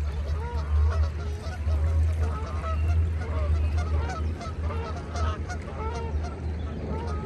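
A flock of geese honking, many short calls overlapping one another, over a steady low rumble.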